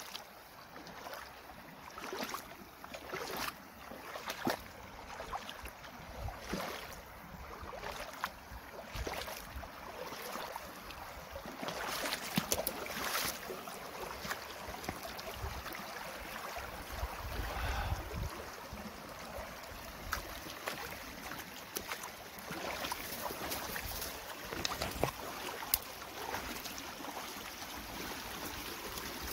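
Small shallow stream flowing over a sandy bed, a steady rush of water, with scattered short rustles and clicks throughout and a brief low rumble a little past halfway.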